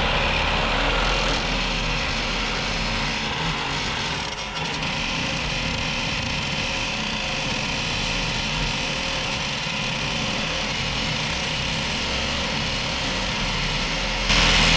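Cordless drill running steadily under load, boring into the steel wall of a gun safe; it gets louder near the end.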